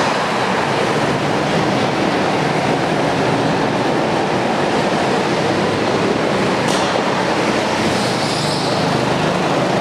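Several go-kart engines running on an indoor track, blending into one steady, loud drone that fills the hall.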